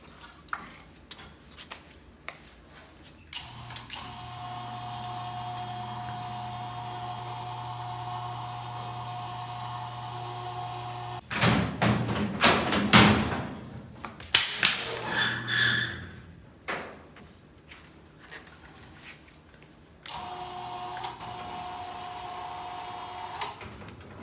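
An electric hoist motor runs with a steady hum for about seven seconds, stops suddenly, and is followed by several loud metallic clanks and knocks. Near the end the hoist hums again for about three seconds and cuts off.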